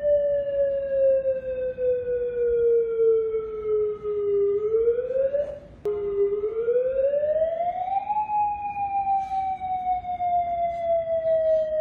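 Outdoor civil defense warning siren sounding its wailing tone, the attack signal that means take cover immediately. The pitch sinks slowly, climbs, then sinks again, with a brief break and click just before the middle.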